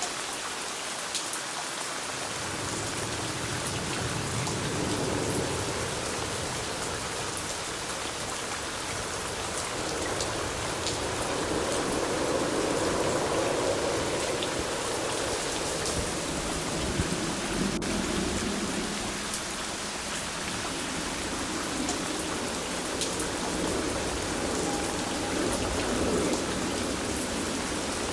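Steady rain falling: an even hiss with scattered drop ticks, swelling and easing slowly.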